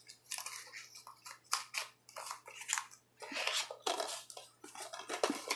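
A plastic DVD case and its paper insert being handled and closed: irregular sharp clicks and taps from the case, with a longer rustle a little after three seconds in.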